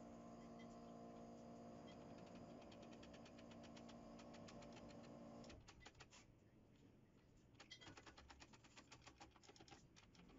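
Faint rapid clicking, over a low steady hum that stops about halfway through.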